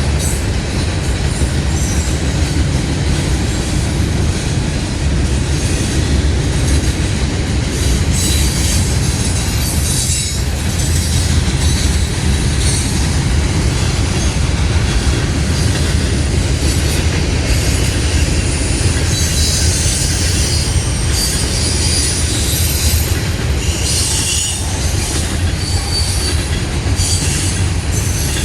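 Norfolk Southern mixed freight train rolling past close by: a loud, steady rumble of cars on the rails, with intermittent high-pitched wheel squeal that comes and goes, most often in the second half.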